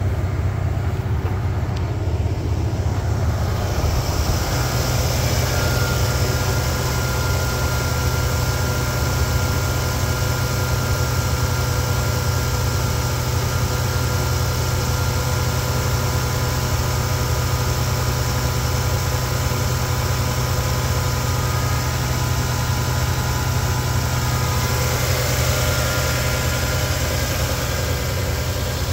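2003 Toyota Tacoma's 3.4-litre 24-valve V6 (3400 Four Cam 24) idling steadily shortly after a cold start, heard first from the cab and then at the open hood.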